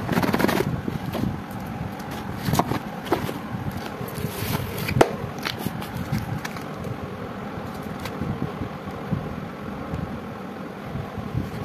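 Cardboard firecracker boxes and a plastic-wrapped firecracker string being handled on a tiled floor: rustling, scraping and a few sharp clicks, the loudest about five seconds in, over a steady background noise.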